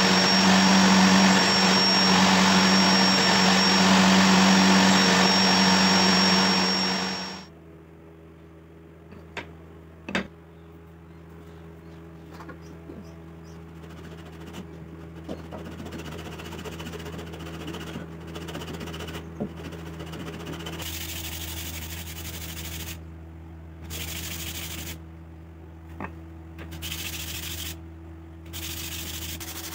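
A table saw runs with a steady high whine while cutting a small wooden strip, then drops away about seven seconds in. Quieter hand sanding follows: sandpaper rubbing on wood in strokes of one to two seconds with short pauses.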